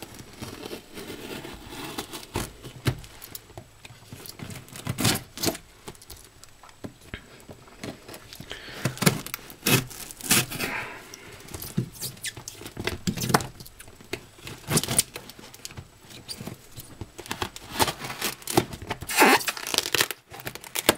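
Victorinox pocketknife blade slicing through packing tape on a cardboard mailing box, with the tape ripping and the cardboard scraping in irregular short strokes.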